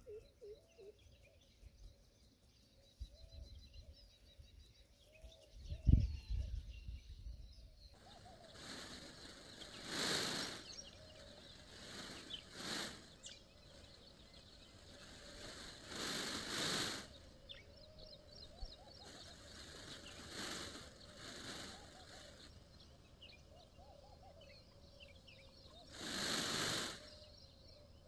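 Birds chirping faintly in the background, broken by about six short bursts of rustling noise, each lasting about a second. There is a single low thump some six seconds in.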